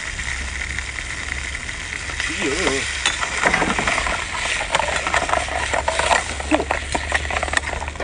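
Seafood bubbling and sizzling in sauce in a wok, a steady hiss, while a ladle stirs it, scraping and knocking against the pan many times from about three seconds in.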